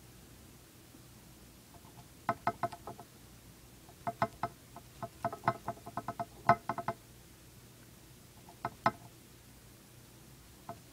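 Dwarf hamster gnawing a hard cheese chew: quick runs of crisp crunching clicks, several a second, in a few bouts with short pauses, starting about two seconds in.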